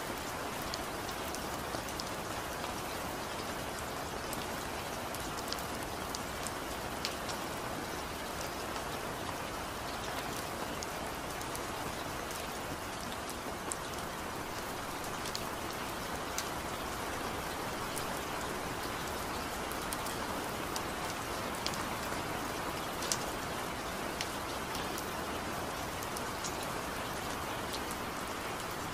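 Steady rainfall: a dense, even hiss with scattered sharp ticks of individual drops striking close by.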